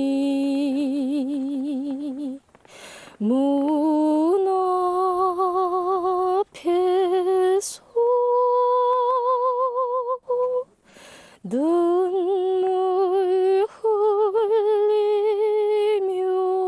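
A woman singing solo and unaccompanied, holding long notes with wide vibrato, phrase by phrase with short pauses for breath.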